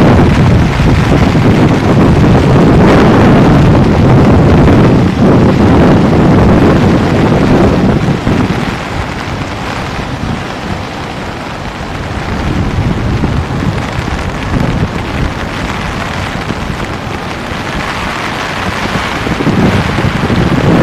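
Wind buffeting the microphone over the rush of the flooded River Conwy. It is loudest for the first several seconds, eases about eight seconds in, and picks up again near the end.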